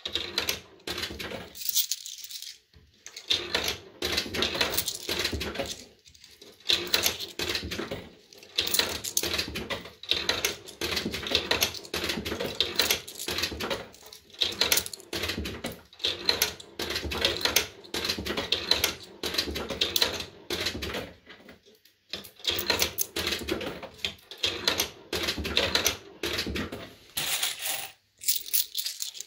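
Pound coins fed one after another into a JPM Red Hot 6 fruit machine's coin slot, clinking and clattering through the coin mechanism as the credit builds. Coins also rattle in the hand and cup between drops. The sound comes as an uneven run of quick clatters with brief pauses.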